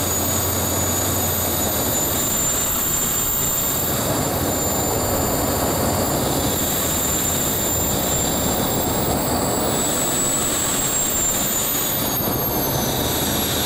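Bede BD-5J microjet's small turbojet running at taxi power, heard from close by: a steady rush under a high turbine whine. The whine rises slightly about ten seconds in, then falls in pitch near the end.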